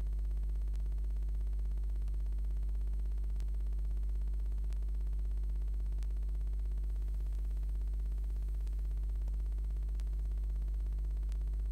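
A steady low electrical hum with a faint hiss, unchanging throughout, and a few faint, sharp ticks scattered through it.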